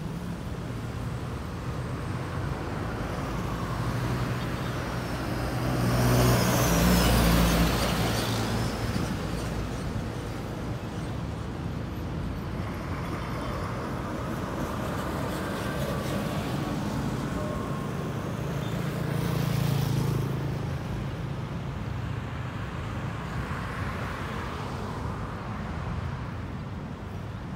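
Road traffic: motor vehicles driving past on a roadside, with steady engine and tyre noise and two louder pass-bys, one about six to eight seconds in and another around twenty seconds in.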